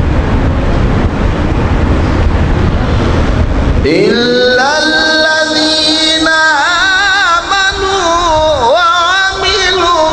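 A loud, even rushing noise, then about four seconds in a man's voice begins melodic Quran recitation (tajweed) over a microphone: a rising glide into long held notes with wavering ornaments.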